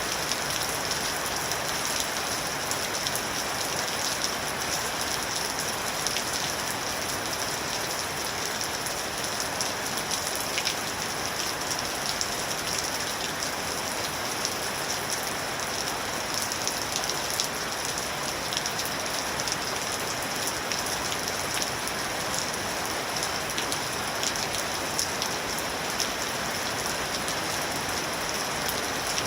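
Steady rain falling, with fine scattered drop patter on a surface.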